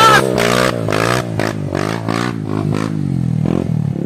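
Yamaha WR155 trail bike's single-cylinder four-stroke engine revving hard under load on a muddy climb, its pitch surging up and down in quick bursts. It eases off near the end.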